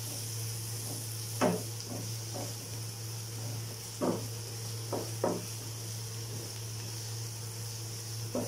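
Sliced onions, green chillies and ginger-garlic paste sizzling in hot oil in a non-stick frying pan. A wooden spatula stirs them and knocks and scrapes against the pan about seven times, over a steady low hum.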